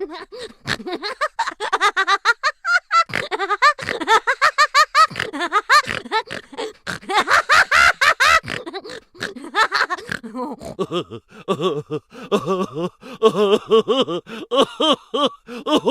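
Human laughter, a string of rapid laughing bursts: higher-pitched laughing in the first half, changing to a lower-voiced laugh about ten seconds in.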